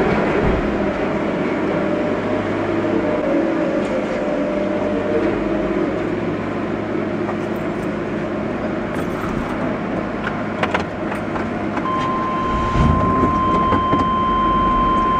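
Engine running steadily, heard from inside a pickup's cab, with a couple of sharp metallic clanks about ten to eleven seconds in. About twelve seconds in, a steady high-pitched tone starts and holds.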